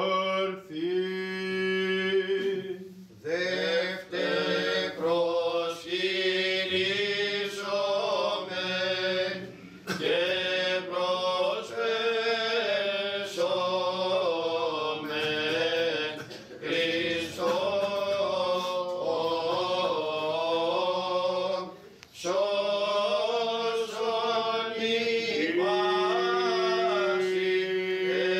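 Male chanters singing Greek Orthodox Byzantine chant a cappella. A steady drone note (ison) is held low beneath a melody that winds up and down in long phrases, with brief breaths between them.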